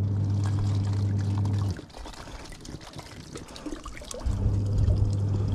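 Water running from a tap into plastic bottles as they are filled. A steady low hum, louder than the water, cuts off about two seconds in and comes back near four seconds.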